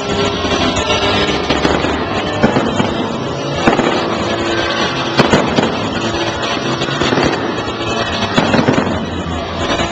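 Aerial fireworks going off in quick succession: a dense, continuous crackling with sharp bangs, the loudest around four and five seconds in and again near the end.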